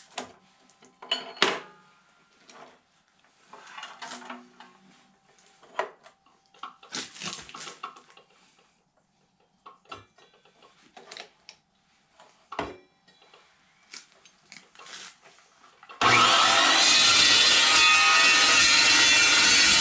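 Scattered clanks, clicks and scrapes of steel stock being set and clamped in a chop saw's vise, then, about three-quarters of the way through, an Evolution chop saw switches on abruptly and runs loud and steady.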